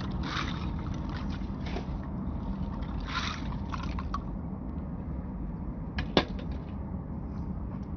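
A few short scraping strokes of a hand tool working debris over the ground, then a single sharp clack about six seconds in, over a steady low rumble.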